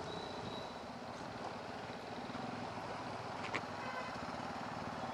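TVS Apache 160 motorcycle engine running steadily at low speed, mixed with wind and road noise. A short sharp click about three and a half seconds in.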